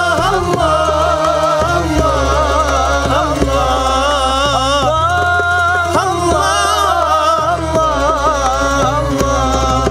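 A woman singing a long, drawn-out, ornamented line with no clear words, over instrumental accompaniment with a low sustained bass, in Moroccan devotional song style.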